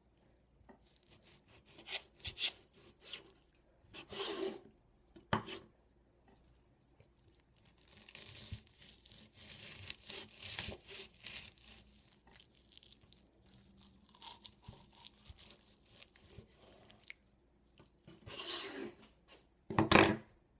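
A knife sawing through raw chicken breast to slice it thin, with irregular scraping and rubbing strokes and a few sharp knocks, the loudest near the end.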